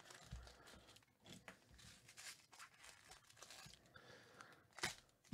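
Faint crinkling and tearing of a foil Topps Tier One baseball card pack being opened by hand, with one brief, sharper crackle near the end.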